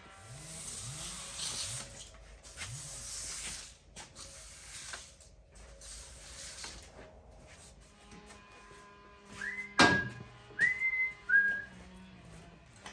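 Shuffling and rustling noise as things are moved about, then one sharp knock about ten seconds in, the loudest sound here. Right after it come a few short whistled notes that rise and then hold briefly.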